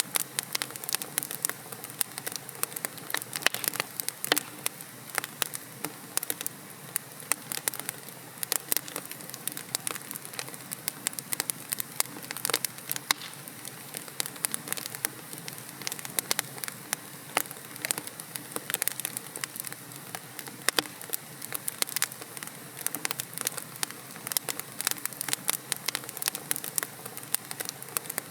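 Wood fire burning in a fireplace: logs crackling and popping with many sharp snaps a second over a soft steady hiss of the flames.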